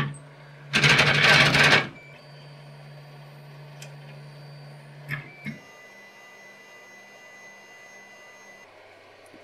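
Malyan M150 3D printer auto-homing, its stepper motors driving the axes to their home positions. A loud rattling burst of movement comes about a second in and lasts about a second. After it the motors give a steady low hum and faint whine, with two clicks about five seconds in.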